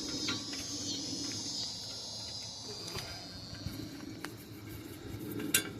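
Crickets trilling steadily at a high pitch, fading out about three seconds in, with a few sharp metallic clinks of hand tools near the end.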